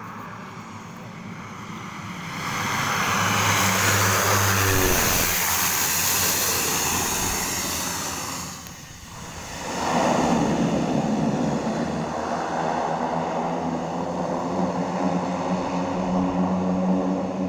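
Turbo Thrush crop-duster's turboprop engine during landing: a loud rush with a high hiss as the aircraft comes past, then, after a short dip, a steady drone with a low even tone.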